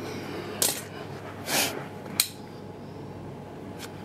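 Hand tools or small hard parts being handled during a washing-machine strip-down: a few separate clinks and clicks, one a little longer, like a short scrape, in the middle.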